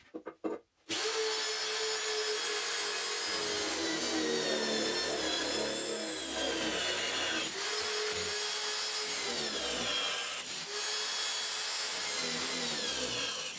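Corded electric drill in a drill stand boring through a steel square tube: a steady motor whine over the grinding of the bit, its pitch sliding down each time the bit bites into the metal, with brief breaks about seven and a half and ten and a half seconds in.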